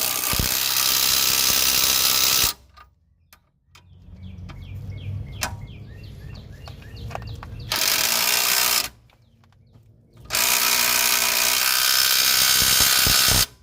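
Cordless power tool running down control-arm bolts in three long bursts, the last the longest. In the quieter gaps between bursts comes a run of quick clicks from a hand ratchet.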